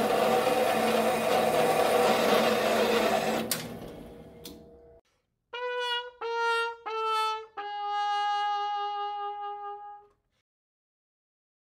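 A steady saw-cutting noise fades out over a second or so. Then comes the "wah wah wah waah" sad-trumpet sound effect: three short falling brass notes and a long last one, the comic cue for a failure.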